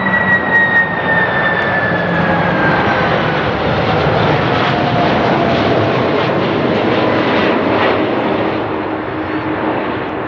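Boeing 747-400F freighter passing low on landing approach: the steady rushing noise of its four turbofan engines, with a whine that falls in pitch over the first few seconds as it goes by. The sound fades slightly near the end.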